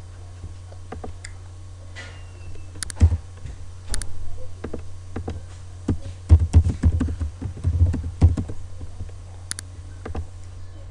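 Computer keyboard keys and mouse clicks, scattered and then in a quick cluster near the middle, over a steady low electrical hum.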